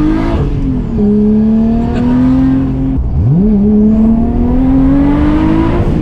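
Nissan Skyline R33 GT-R's built RB30 straight-six with a big single turbo, heard inside the cabin while the car accelerates hard through the gears. Engine pitch climbs, then falls at each gear change: about a second in, around halfway and at the end.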